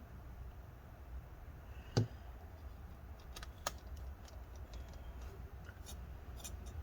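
Small laptop cooling fan turning in its housing and catching, giving scattered light ticks with a sharper click about two seconds in. The housing layers squeeze together and the blades hit, which the repairer puts down to broken-off plastic tabs.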